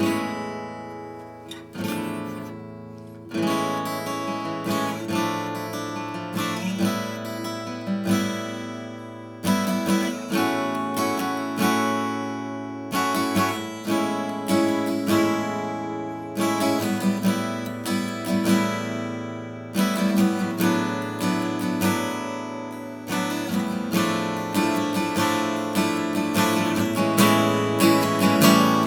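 1974 K.Yairi YW-800G acoustic guitar played unaccompanied: strummed chords and picked notes, a new stroke every half second to a second, each left ringing.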